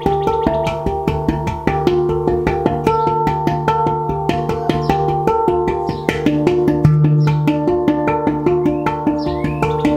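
Steel handpan played by hand: a quick, steady stream of finger strikes on its tone fields, the notes ringing on and overlapping. About seven seconds in, a deep low note is struck and rings out loudest.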